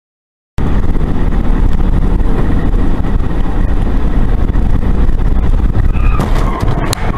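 Silent for about half a second, then loud, steady low road and engine noise of a car driving and speeding up, heard through a dashcam's microphone inside the car. A few sharp clicks come near the end.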